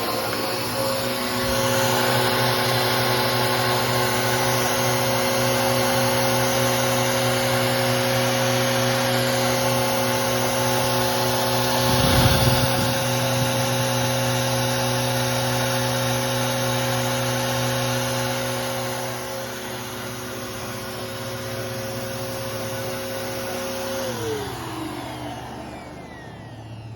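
Bissell Powerforce Helix 3313 upright vacuum cleaner running steadily with a constant motor whine, with a brief bump about halfway through. Near the end it is switched off and the motor winds down, its pitch falling away.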